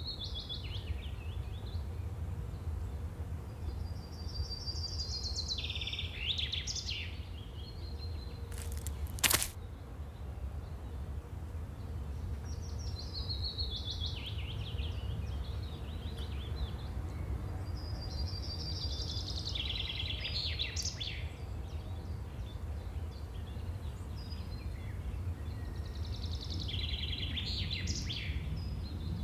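A bird singing a short, high song phrase about every six or seven seconds, over a steady low rumble. One sharp click about nine seconds in.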